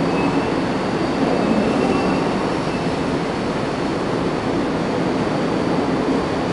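A passenger train running past on the rails: a steady rumble of wheels and carriages, with faint thin high-pitched tones held above it.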